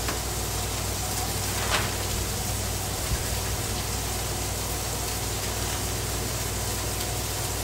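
Ground-beef burger patties and onions sizzling on a Blackstone flat-top griddle: a steady, even hiss, with a single short click about two seconds in.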